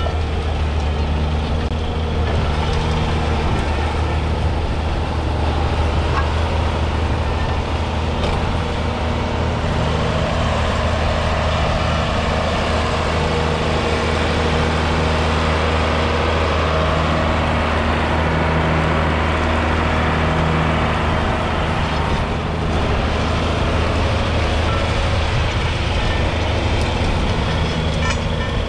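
1982 John Deere 4040's six-cylinder diesel engine running steadily under load, pulling a four-furrow reversible plough through stubble.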